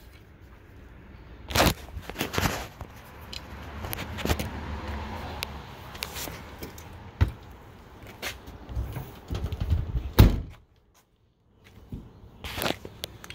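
Handling noise: scattered clicks and knocks with a low rumble, and one loud thunk about ten seconds in, after which the sound drops out completely for about a second.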